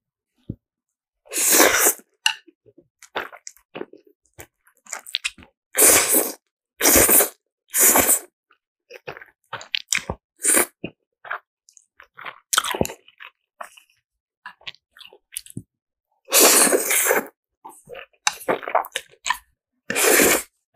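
Close-up eating sounds of spicy black-bean instant noodles: about six loud slurps as mouthfuls of noodles are drawn in, with wet chewing and small clicks in between.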